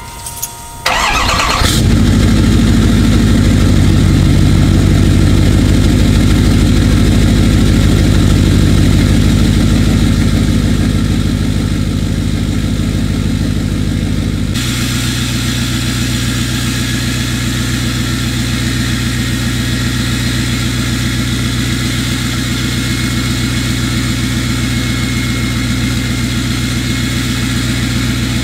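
Lifted diesel pickup truck's engine cranks and fires about a second in, then runs at a fast idle that settles into a lower, steady idle about halfway through, heard close to the exhaust tip.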